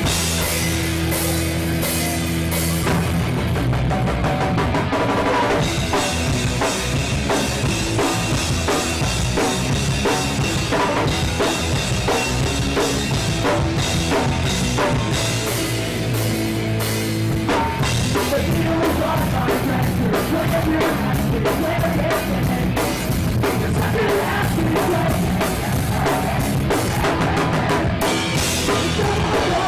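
Pop-punk band playing live, loud and continuous, with electric guitars, bass and a drum kit.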